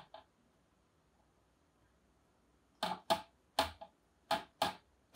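Marker pen writing on a small whiteboard. Two faint ticks come at the start, then a quiet stretch, then from about three seconds in a run of about six short scratchy strokes, roughly two a second.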